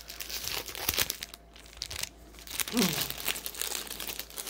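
Packaging crinkling and rustling irregularly as a diamond painting kit is unwrapped and handled.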